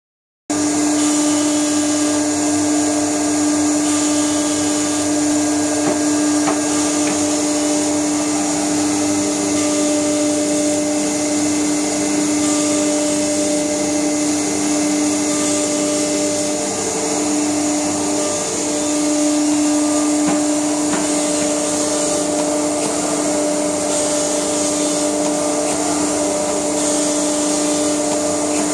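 Muller Martini Panda clamp binder and its 12-station gatherer running in production: a steady machine hum with a strong low drone over a constant hiss.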